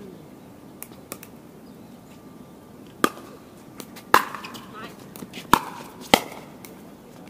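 Pickleball paddles hitting a hard plastic pickleball in a rally: sharp pops, four loud hits spaced roughly a second apart from about three seconds in, with a couple of fainter taps before them.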